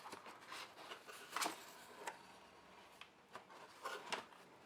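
Faint handling of a graphics card's cardboard packaging: light rubbing with a few scattered taps and clicks.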